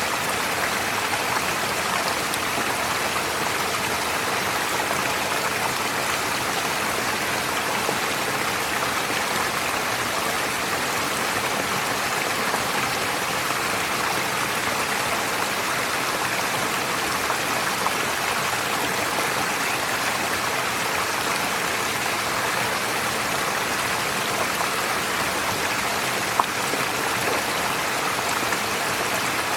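Forest stream flowing steadily over stones, an even rush of running water. One brief click near the end.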